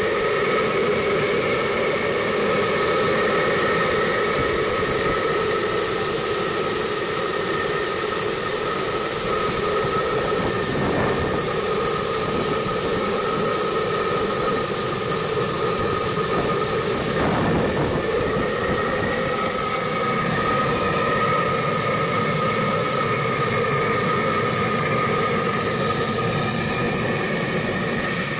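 Paraffin blowlamp burning with a steady hiss as it preheats the hot bulb of a 1949 Bolinder-Munktell BM20's hot-bulb engine before starting.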